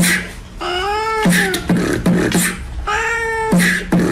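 Beatboxing: a looping rhythm of mouth clicks and short low hummed notes, with a long meow-like call that rises and falls twice, about every two and a half seconds.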